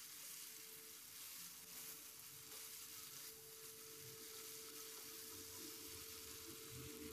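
Faint sizzle of tofu, chilli and onion simmering in a shallow teriyaki sauce in a wok.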